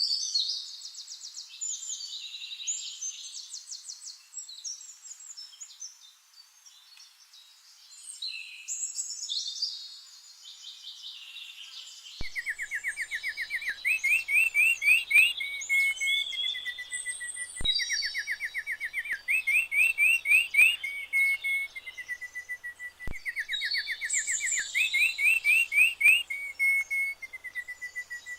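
Birds singing in chattering trills and warbles. From about twelve seconds in, a fast trilling song phrase repeats three times with a click at each restart, the sign of a looped recording.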